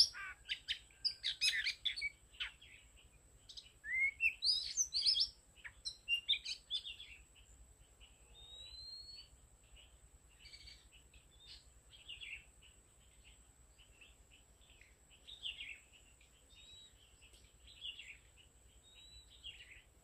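Oriental magpie-robin singing: a quick run of varied clear whistles and rising slurred notes, loud for the first six or seven seconds, then fainter scattered notes and short calls.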